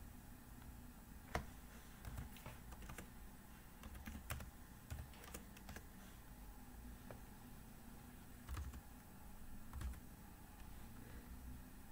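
Faint, scattered keystrokes on a computer keyboard, irregular clicks as component values are typed in.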